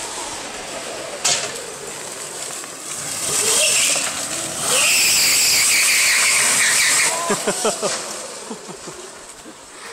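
Engine-swapped racing go-kart sliding on paving stones: a high tyre squeal holds for about two and a half seconds in the middle, with the engine's note rising and falling around it in quick revs.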